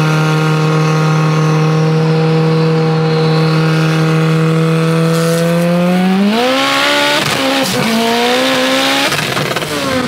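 Turbocharged Mitsubishi Evo 8 engine droning steadily at one pitch, heard from inside the cabin while cruising on the freeway. About six seconds in the pitch rises as the car accelerates, breaks off briefly twice, then falls away near the end.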